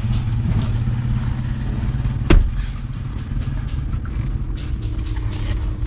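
Steady low engine rumble with one sharp knock about two seconds in and some light clatter.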